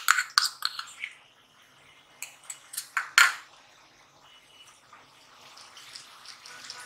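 Utensil clicking and knocking against a clay cooking pot as ginger-garlic paste goes into frying onions, several sharp clicks at the start and again about three seconds in. Then a wooden spatula stirs the onions in hot oil, with a sizzle that grows louder toward the end.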